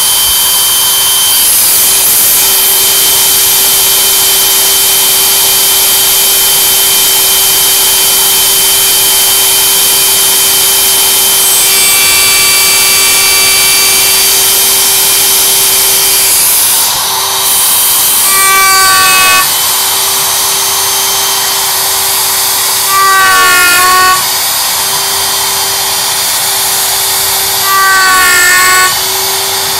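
CNC router spindle running with a steady whine as a dovetail bit makes a slow test cut of through-dovetail tails in a mahogany drawer side. Three times in the second half the machine grows briefly louder for about a second, with a pitch that wavers up and down.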